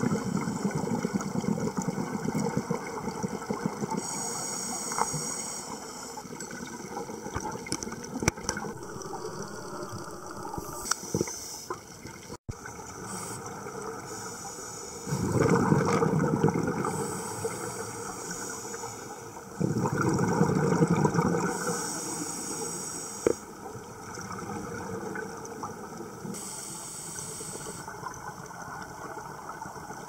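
Scuba diver breathing through a regulator underwater: short hissing inhalations alternate with louder, low bubbling exhalations, one breath every several seconds.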